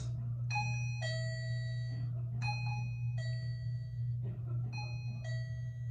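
Electronic two-note ding-dong doorbell chime from a KERUI wireless motion-sensor door chime's speaker, played three times about two seconds apart, a higher note then a longer lower one, while its volume levels are stepped through. A steady low hum runs underneath.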